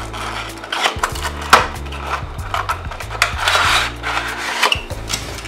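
Cardboard and plastic packaging being handled: scattered clicks and taps, then a longer scraping rustle about three and a half seconds in as the plastic tray is slid out of its cardboard sleeve. Steady background music plays underneath.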